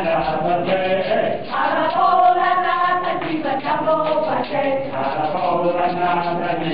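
Mixed choir of men and women singing together, holding long notes.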